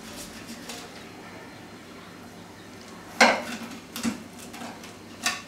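Kitchenware clinking: three sharp knocks of metal or crockery, one about three seconds in and two more in the following two seconds, the first the loudest.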